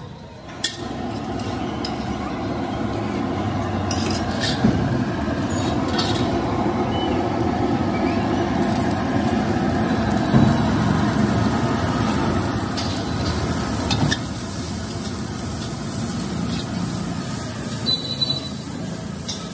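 Sliced onions and vegetables sizzling in hot oil in an iron wok, starting about half a second in, while a metal ladle stirs them and now and then scrapes and clinks against the wok.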